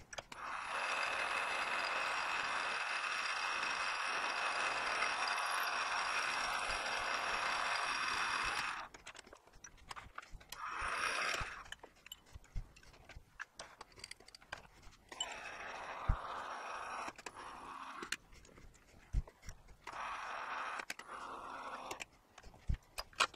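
Metal lathe running while a twist drill held in the tailstock drill chuck bores into the workpiece. A steady whir with a few high tones lasts about eight seconds and then stops. Shorter, quieter runs of the machine follow, with scattered clicks and knocks between them.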